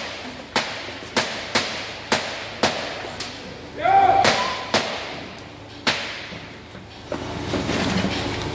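Knife blades chopping down on plastic cutting boards as broccolini stems are trimmed: sharp knocks about every half second. Near the end a steady machine rumble sets in.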